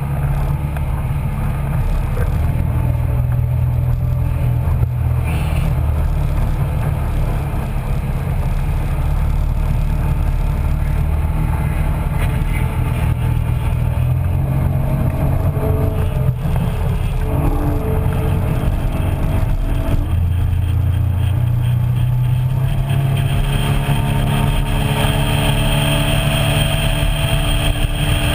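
Small motorboat under way: a steady low rumble of its engine and wind on the microphone, with the engine's pitch shifting a few times in the second half.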